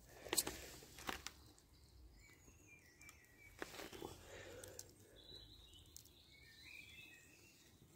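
Faint woodland ambience with a few sharp clicks and faint bird chirps.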